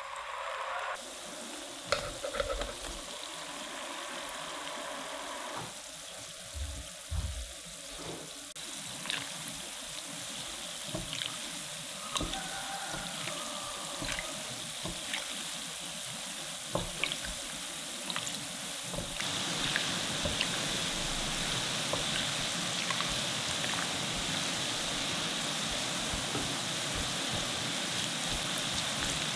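Sweet potato balls deep-frying in hot oil: a steady bubbling sizzle, with occasional light taps as a silicone spatula stirs them. The sizzle grows louder about two-thirds of the way through.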